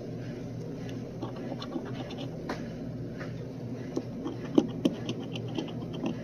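A coin scratching the coating off a scratch-off lottery ticket in a series of short, uneven scrapes. Two sharper ticks of the coin stand out about two-thirds of the way through, over a steady low background hum.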